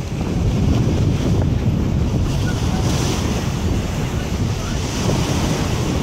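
Wind buffeting the microphone over the wash of choppy sea water, with a brighter hiss of water from about halfway through.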